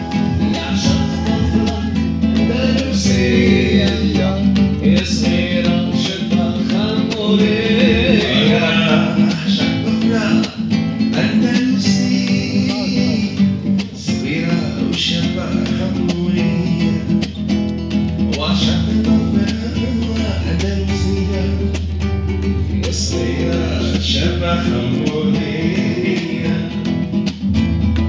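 Acoustic guitar strummed steadily, with a man singing over it in phrases.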